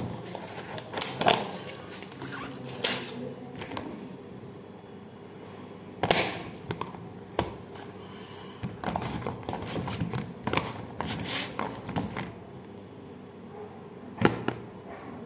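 Clear plastic container of dates and its packaging being handled: scattered clicks, taps and rustles, with two louder clacks, about six seconds in and near the end.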